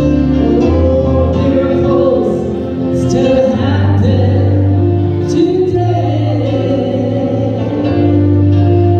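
Gospel song: voices singing long held notes over a band with a steady bass line.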